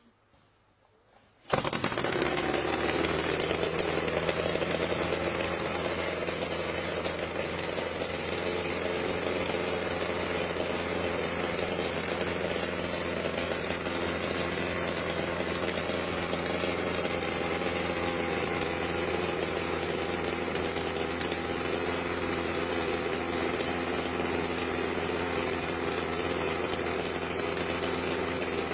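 Engine of a home-made helicopter starting abruptly about a second and a half in, then running steadily at a constant speed.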